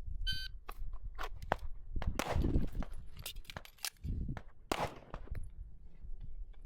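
Shot-timer start beep, then a string of pistol shots in quick succession from a 9mm Canik Mete SFT Pro during a timed qualification stage.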